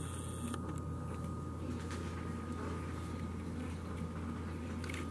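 Room tone: a steady low hum with a faint, thin, steady high tone, and a couple of faint ticks near the end.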